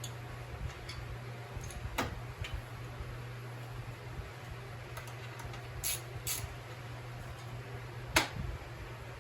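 Hand tools on the dirt bike's subframe bolts giving a few scattered sharp metal clicks and clinks, the loudest near the end, over a steady low hum.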